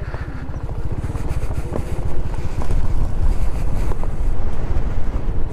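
Honda Pop 110i's single-cylinder four-stroke engine running at low speed, getting louder after about two seconds, with wind buffeting the microphone.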